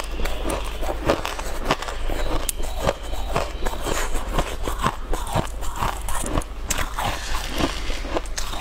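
Close-miked biting and chewing of an ice cake: a dense, continuous run of small crisp crunches and crackles.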